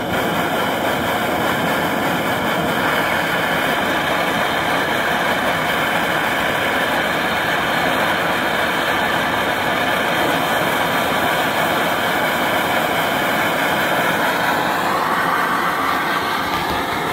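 Coleman Exponent Denali liquid-fuel backpacking stove burning at full flame: a loud, steady rushing hiss from the pressurised burner, which barely turns down with its flame control. Its tone shifts slightly near the end.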